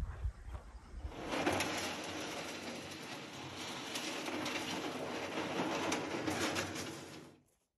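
Small metal punt dragged over a pebble beach by its rope: the hull grinds and scrapes steadily across the stones, with pebbles crunching and rattling. It starts about a second in and stops abruptly near the end.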